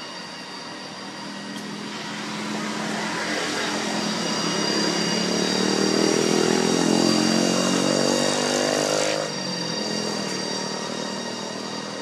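A motor vehicle's engine passing close by. It grows louder over several seconds as its pitch rises, then drops off sharply about nine seconds in.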